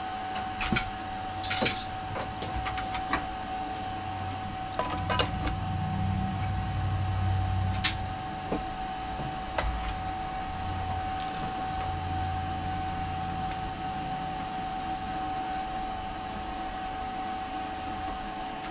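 Sharp metallic clicks and clatter as a welder's ground clamp and cable are handled and set on a steel workbench, most of them in the first few seconds, over a steady hum.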